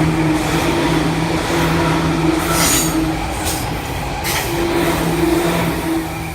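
Seibu Shinjuku Line electric commuter train running past close by, a loud rushing rumble of wheels on rail with a steady motor hum and brief high wheel screeches a few seconds in; the sound dies away near the end.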